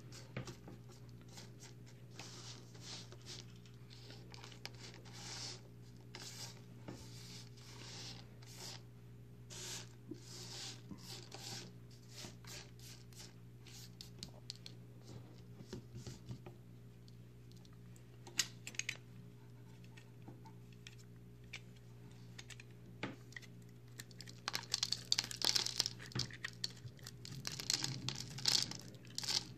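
Dry soap shavings clicking and rustling as fingers sift and drop them. Near the end comes louder, denser crunching as a crumbly block of recycled soap made of pressed shavings is cut into. A steady low hum runs underneath.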